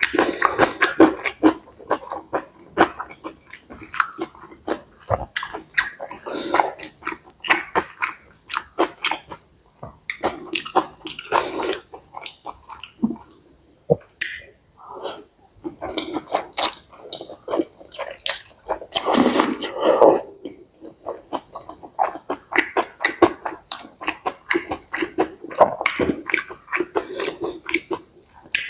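Close-miked eating of pad see ew (stir-fried wide rice noodles with pork and Chinese kale): steady wet chewing and mouth clicks, with one longer, louder rushing sound about two-thirds of the way in.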